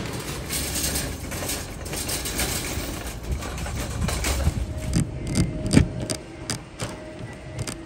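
Metal shopping cart rattling as it is pushed, with irregular clicks and knocks in the second half.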